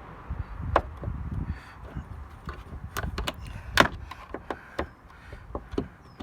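Screwdriver levering at the metal retaining clip on the top end of an Audi A2 tailgate gas strut: a series of irregular sharp clicks and knocks, the loudest just under four seconds in.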